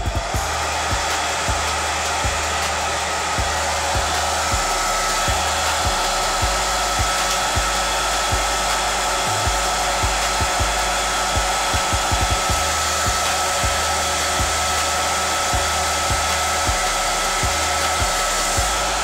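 Handheld hair dryer blowing steadily, an even rush of air with a faint steady motor whine, aimed at the hairline.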